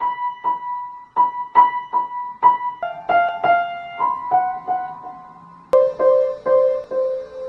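Piano keys struck one at a time by a cat's paw: sparse single notes, each left to ring, often the same high key repeated about twice a second, moving to lower keys in the second half.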